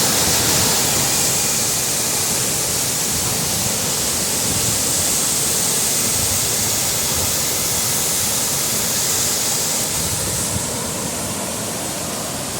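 Rushing river water, a loud steady hiss.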